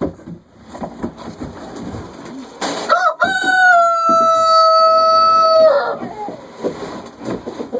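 Rooster crowing once about three seconds in: a couple of short rising notes, then one long held note of about two and a half seconds that drops at the end. Softer hen clucking and scuffling come before and after the crow.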